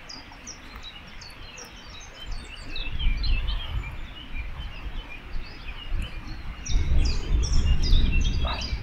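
Small birds chirping and singing busily. Gusts of wind buffet the microphone with a low rumble, briefly about three seconds in and again from about six and a half seconds, where it is loudest.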